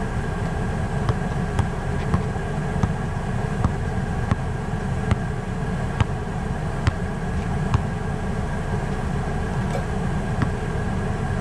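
A basketball being dribbled on an outdoor asphalt court: a series of sharp bounces, one every half second to a second, pausing for a couple of seconds near the end. Behind it runs a steady low rumble with a faint hum.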